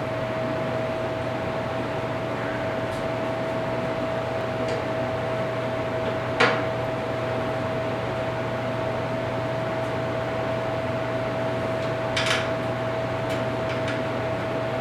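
Steady mechanical hum with a constant whine running underneath, broken by a sharp click about six seconds in and a brief clatter a little after twelve seconds, as motorcycle parts and the oil line are handled and fitted.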